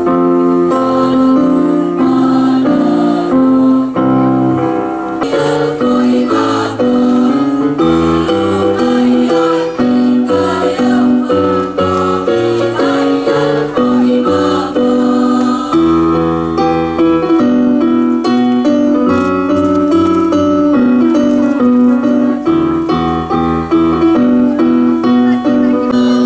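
Choir singing a song together with keyboard accompaniment, held chords and a moving bass line under the voices.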